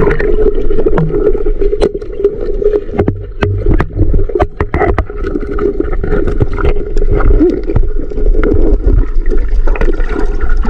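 Muffled underwater sound picked up by a submerged camera: a steady low water rush with a constant hum, broken by many sharp clicks and knocks, thickest in the first half.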